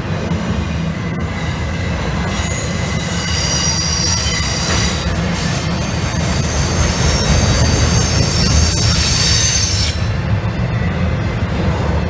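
Train rolling past with its steel wheels squealing against the rails: several high-pitched squeals held together over a steady low rumble. The squealing stops about ten seconds in while the rumble goes on.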